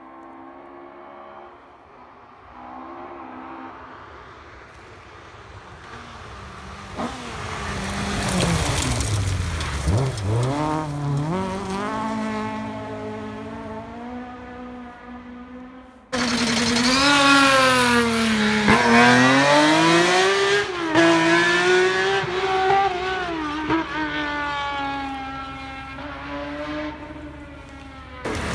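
Rally car engines revving hard and changing gear. The first car is quieter; its note falls and then climbs again about ten seconds in. After a sudden cut about halfway through, a louder car revs up and down repeatedly through its gears.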